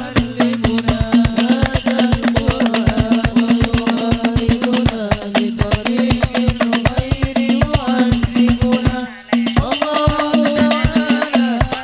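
Sholawat music from a frame-drum (rebana) ensemble with tambourines, playing a fast, dense rhythm over a held low note and a wavering melody line. The music breaks off briefly about nine seconds in, then carries on.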